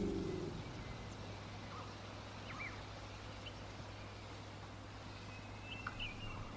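The tail of a deep animal call fades out in the first half second, leaving quiet outdoor wildlife ambience with a low steady hum and a few faint, short bird chirps.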